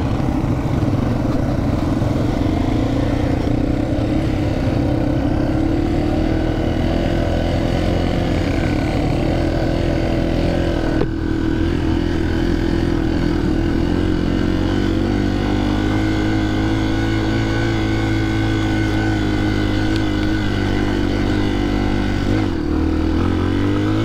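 Yamaha TT-R 230 trail bike's single-cylinder four-stroke engine running steadily under the rider, heard from a microphone inside the helmet. The sound breaks off briefly near the middle, and the engine note rises near the end.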